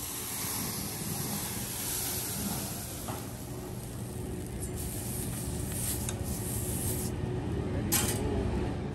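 The hiss of flaming oil on a steel teppanyaki griddle dies away, leaving a steady low hum, with a small knock about three seconds in and a sharper metal clack near the end.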